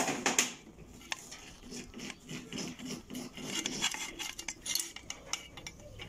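Metal clinking and scraping as a steel spring is worked into a hole in the sheet-metal motor-mount bracket of a Maytag washer motor. A couple of sharp clinks come right at the start and another about a second in, followed by many small scratchy clicks.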